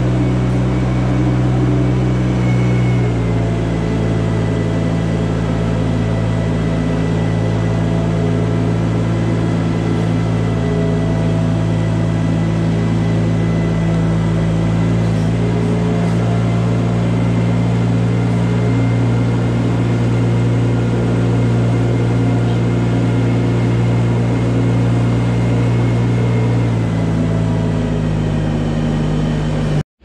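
Compact loader's engine running steadily as it drives down a barn alley pushing a manure scraper blade. The engine note changes about three seconds in and again near the end.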